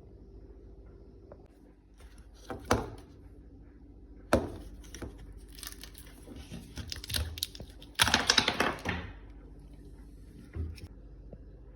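Kitchen handling sounds: two sharp knocks, then scattered clicks and a longer rustling, crinkling burst about eight seconds in.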